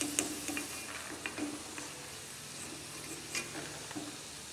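Hot oil sizzling steadily in a kadai as a wire-mesh skimmer lifts out batter-coated masala peanuts, the skimmer clicking and scraping against the pan and the steel plate a few times.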